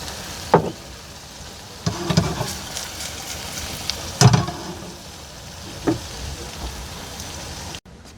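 Food frying in a pan with a steady sizzle, with a few knocks and scrapes of a utensil against the pan.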